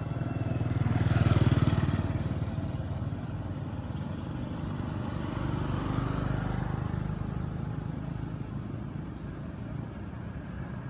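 A motor vehicle's engine passing on the road, loudest about a second and a half in and then fading, with a second, quieter swell around six seconds in.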